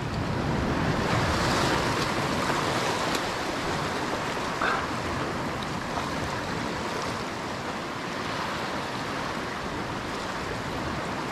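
Ocean surf washing over a rocky shoreline: a steady rush of water, a little louder in the first few seconds.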